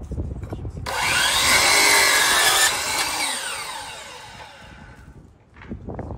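DeWalt sliding compound miter saw starting suddenly about a second in and cutting through crown molding. It is released after a couple of seconds, and its whine falls steadily in pitch as the blade spins down.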